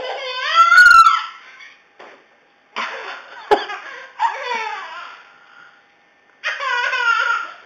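Toddler laughing out loud in three bouts of high-pitched belly laughs at a game of peek-a-boo, the first the loudest; a sharp click about three and a half seconds in.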